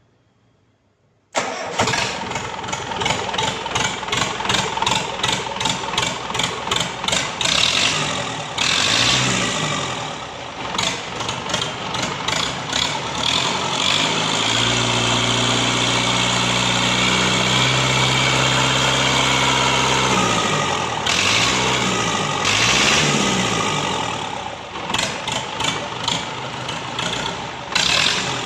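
Freshly overhauled Simpson S4 four-cylinder diesel engine starting about a second in and running on test with a clear, even firing beat. Partway through it is revved up and held at a steady higher speed for several seconds, then let down, blipped a few times and settles back to a lower speed.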